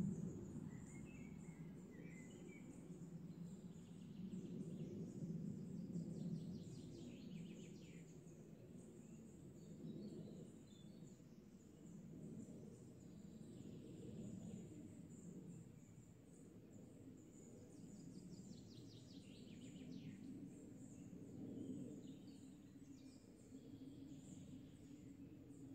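Faint outdoor ambience: a low background rumble and a steady high hiss, with a few distant bird chirps and trills scattered through it.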